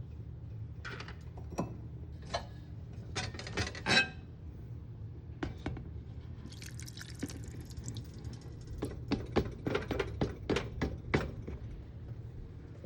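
Kitchen handling sounds: scattered clinks and knocks of utensils and dishes, with a short stretch of liquid pouring or splashing in the middle, over a steady low hum.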